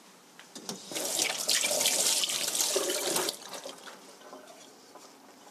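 Kitchen sink tap running for about two seconds, then shut off.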